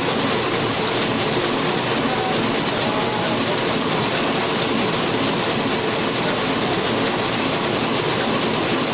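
Single-colour sheet-fed offset printing press running at a steady speed: a continuous, dense mechanical clatter.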